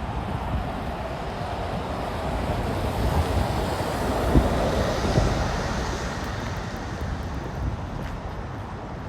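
A vehicle passing by, its road noise swelling to a peak about halfway through and then fading, over wind buffeting the microphone.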